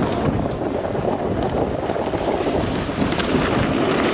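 Snowboard sliding over hard-packed snow, a steady scraping rush mixed with wind buffeting the camera's microphone.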